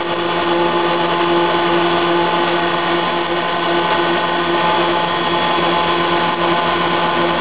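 Pet food extruder machine running: a loud, steady mechanical drone with a constant hum.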